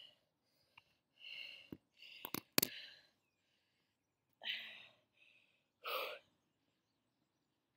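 Short breathy exhales and sighs from a woman catching her breath, with a few sharp knocks of the phone being handled about two seconds in.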